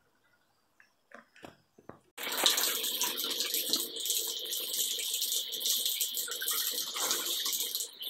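Bathtub mixer tap running, water pouring steadily into the tub; it starts suddenly about two seconds in, after a few faint knocks.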